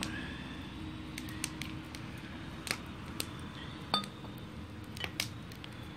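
Glass bottles clinking now and then as they are handled and searched through: a few short, sharp clicks at irregular moments over a steady low background.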